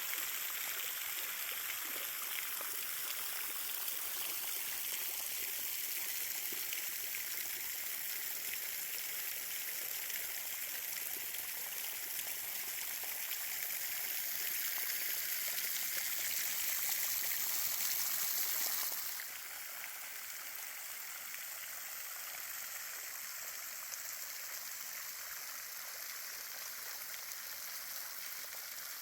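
Copperas Creek Falls running at low flow: a steady hiss of falling, splashing water. It steps down suddenly to a quieter level about two-thirds of the way through.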